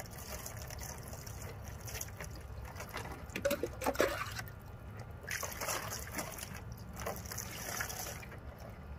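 Water poured from a plastic scoop over a small wet dog, trickling and splashing into a shallow plastic pool as shampoo is rinsed from its coat. The splashing comes in several uneven spells.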